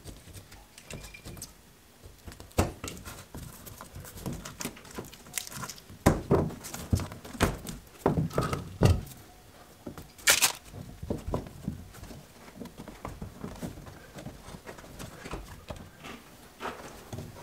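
Utility knife cutting into a rubber horse stall mat, with rubber pieces being handled and set down: irregular thunks, knocks and scrapes, and a short sharp rasp about ten seconds in.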